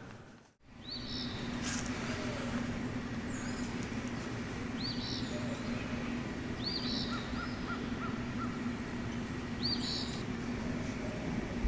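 Wild birds calling: a short high call repeated several times, and a quick run of five or so short chirps a little past the middle, over a steady low hum.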